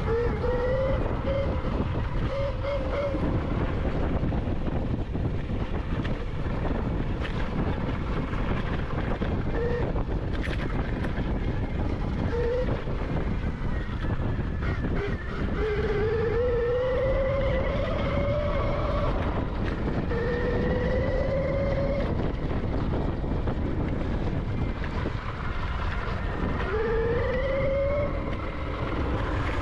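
Electric dirt bike being ridden off-road: its motor gives a whine that rises in pitch several times as the bike speeds up, over constant wind and tyre rumble.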